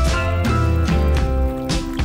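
Background music with held notes over a recurring bass.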